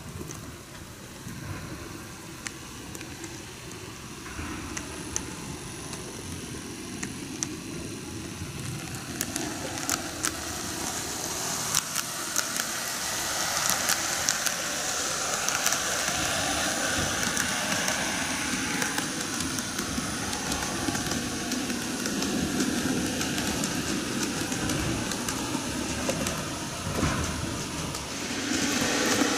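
N-gauge model trains running on plastic-based track: a whirring motor and the rattle of small wheels, with sharp clicks as the wheels cross the rail joints. The sound grows louder as the trains come round the curve close by, dips briefly near the end, then picks up again.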